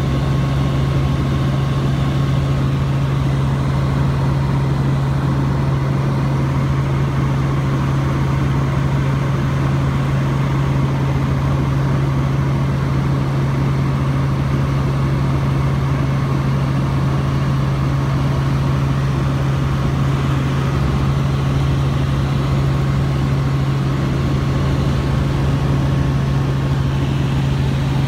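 Helicopter heard from inside the cabin in steady flight: a constant low hum from the engine and rotors over an even rushing noise, unchanging throughout.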